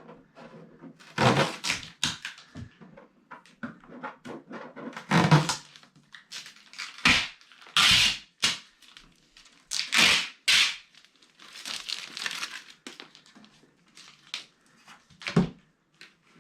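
Packing material being handled and pulled away from a newly boxed 3D printer: irregular scraping, rustling and rubbing, with a few dull knocks.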